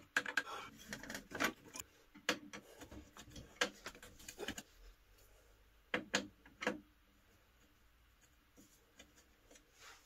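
Screwdriver scraping and clicking against a stubborn screw in a TV's metal chassis, in short irregular bursts for about five seconds: the screw won't turn with this screwdriver. A few sharper clicks come about six seconds in.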